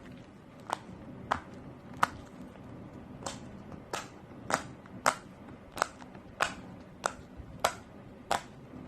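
A handmade heart shell puppet snapped open and shut over and over, giving about a dozen sharp clicks, roughly one every two-thirds of a second, with a brief pause early on.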